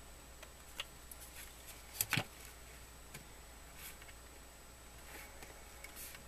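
Small handling noises from unboxing a collectible locket and its display case: a few light clicks and rustles, with the loudest, a quick pair of knocks, about two seconds in.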